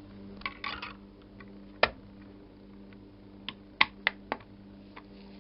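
A handful of sharp, irregular clicks and taps, the loudest just under two seconds in and again near four seconds in, over a faint steady hum.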